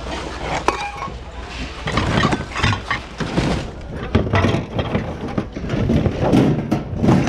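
Assorted hard goods being rummaged through in a thrift-store bin: a run of irregular clatters and knocks as objects are shifted and bump together.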